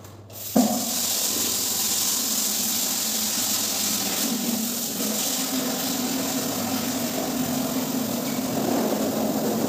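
Water running steadily from a wall tap into a plastic bucket, starting abruptly about half a second in.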